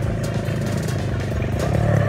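Vehicle engine running steadily under way, with a rapid, even firing pulse.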